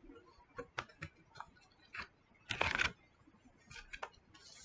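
A paper page of a picture book being turned by hand: a few faint taps and clicks of handling, with one short rustle of the page sweeping over about two and a half seconds in.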